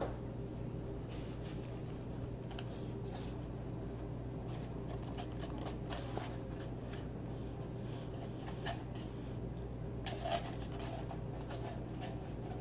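Light scattered clicks, scrapes and rustles of hands handling a foam cup on a table, over a steady low hum.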